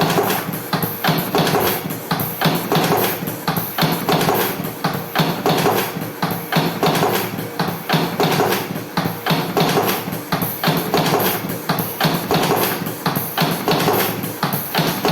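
Electric cigarette rolling machine running, with rapid, even clacking of its mechanism over a steady motor hum.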